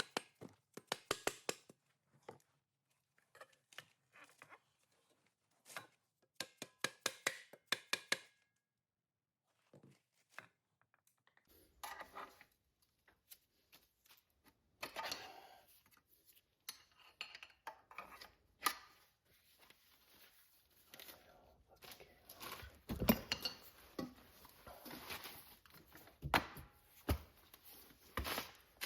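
Bursts of quick clicks and knocks from hand work on a car's rear wheel hub assembly as it is fitted back over the axle. The knocks grow denser in the second half and are loudest in the last third.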